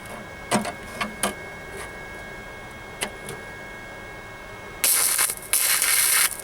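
Flux-core wire welder laying two short spot welds on a sheet-steel floor pan patch, each a loud burst of arc crackle about half a second long, the pair starting about five seconds in. A few light clicks come before them.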